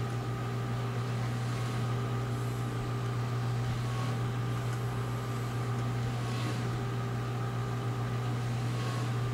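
Steady low machine hum, even in level, with a few fainter steady tones above it.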